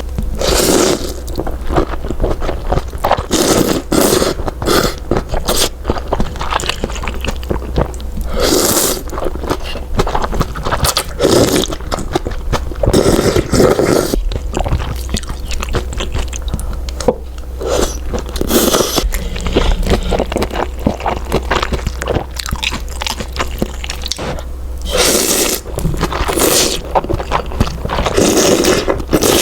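Close-miked eating of malatang noodles: chewing with many wet mouth clicks and a few longer noisy bursts.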